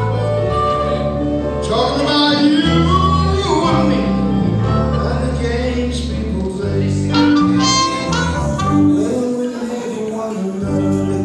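Live blues band playing, with a harmonica lead over electric bass, electric guitar and keyboard.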